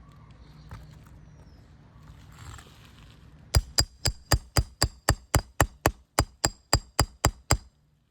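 A roofing hammer tapping a steel nail puller, a quick run of about sixteen sharp, ringing metal-on-metal strikes at roughly four a second, starting about three and a half seconds in. The puller is being worked under a roofing nail on the shingles.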